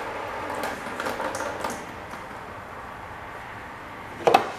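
Hand working the transmission filter off a 1978 John Deere 312 lawn tractor: faint scrapes and small clicks of metal, with one short, louder noise near the end.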